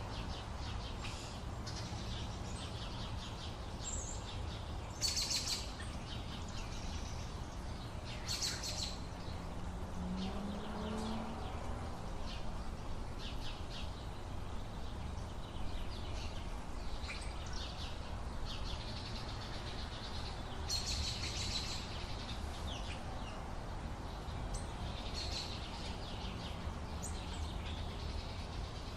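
A morning chorus of many small birds chirping and singing, with louder clusters of chirps now and then, over a steady low rumble of background noise.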